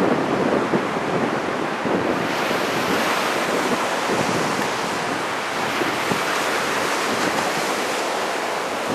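Strong wind buffeting the microphone over the steady rush of heavy surf from large typhoon swell breaking offshore.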